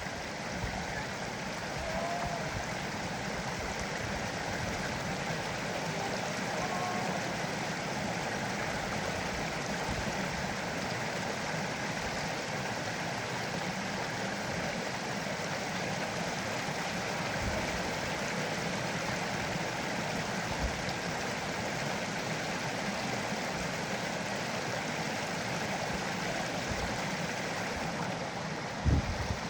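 Creek water flowing, a steady rushing hiss, with one sharp bump near the end.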